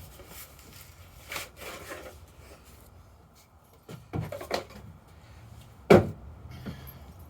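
Handling noises from a motorcycle battery being worked into its battery box: scattered rubbing and light knocks, with one sharp knock about six seconds in as the loudest.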